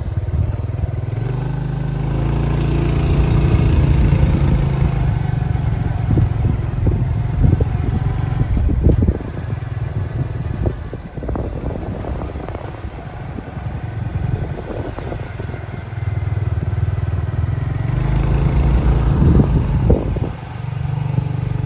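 Motorbike running along a bumpy dirt track, its sound swelling and easing as it goes, with knocks and rattles here and there.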